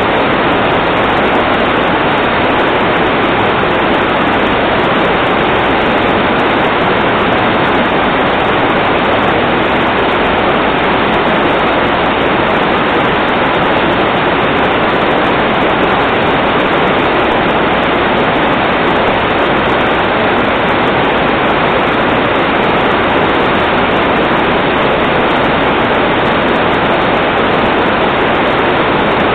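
Steady, loud rush of water, an even hiss without any breaks.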